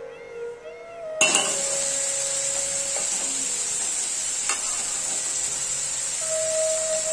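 Faint flute music, then about a second in a steady sizzle starts as a fish-and-onion mixture fries in a karahi, with a couple of sharp knocks of the metal spatula against the pan; the music carries on faintly underneath.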